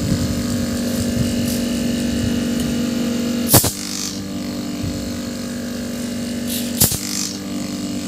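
Refrigerator piston compressor, its shell cut open, running on a test with a steady hum after its cylinder-head bolts were tightened, being checked for restored compression. There is a sharp click about three and a half seconds in and another near seven seconds.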